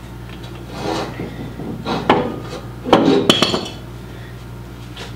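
Metal clanking and scraping as a bottle jack is set into place against metal parts: three rounds of clatter about a second apart, the last and loudest about three seconds in.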